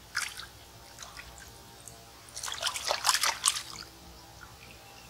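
Water in a shallow stream splashing and sloshing as hands rinse a freshly caught catfish: a brief splash at the start, then a cluster of short splashes in the middle.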